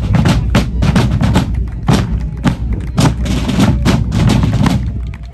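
Snare and bass drums of a fife and drum corps playing a marching beat: rapid snare strokes over bass drum thumps.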